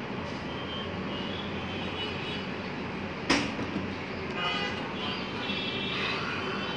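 Steady background noise with one sharp knock about three seconds in, from the phone being handled as it is set up, and faint high tones near the end.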